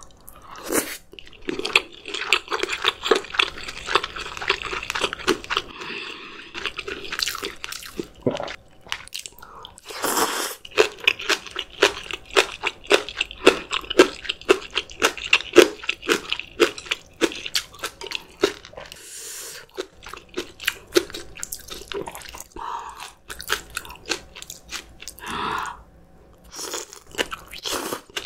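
Close-miked chewing of spicy steamed monkfish with bean sprouts: a dense run of crisp, rapid crunches as the sprouts are bitten and chewed.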